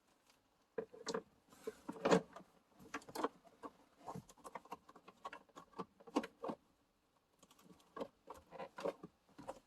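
Hands working plastic parts at a car's cabin air filter housing: irregular clicks, knocks, scrapes and rustles, with a short pause late on.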